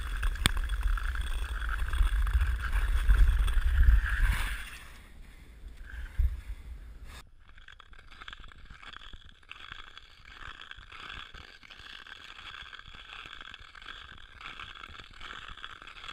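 Ice skate blades grinding and scraping over rough, rutted ice, with a loud low rumble for the first four seconds or so. It drops abruptly to a lighter, quieter scraping at about seven seconds.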